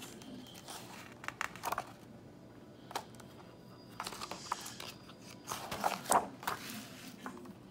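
Paper rustling and crinkling as the pages of a printed owner's manual are handled and turned: a few short, scattered rustles, the loudest around six seconds in.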